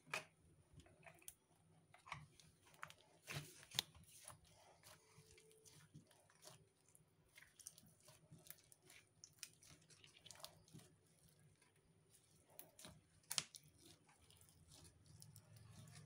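Pink slime being kneaded, squeezed and pulled by hand, giving faint, irregular sticky clicks and crackles, with a few sharper pops standing out.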